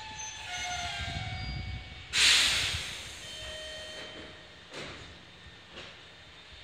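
Meitetsu electric train running, with a whine from its motors over a low rumble. About two seconds in comes a loud burst of compressed-air hiss that dies away within half a second, then two faint clicks.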